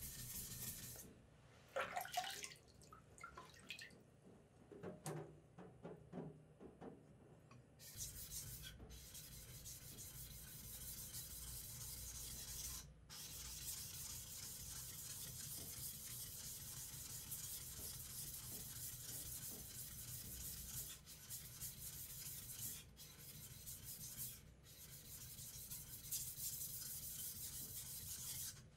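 Yanagiba sashimi knife blade rubbed back and forth by hand on a wet whetstone: steel scraping on stone. It is quieter and patchier for the first several seconds, then runs steady with a few brief breaks.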